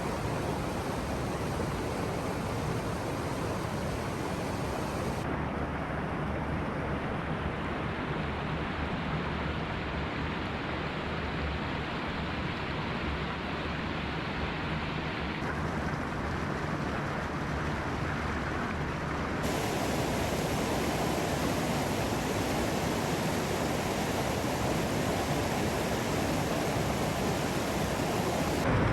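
Nambe Falls rushing: a steady wash of falling water. Its tone changes abruptly a few times.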